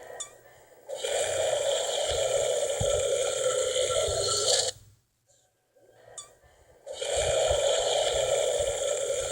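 Two long, drawn-out cartoon burps, each lasting several seconds, with a short silence between them; the second carries on past the end.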